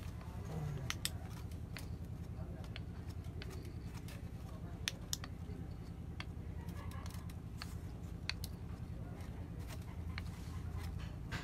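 Handling of a rough jade stone under a flashlight: scattered sharp clicks and light taps, several in places, over a steady low hum.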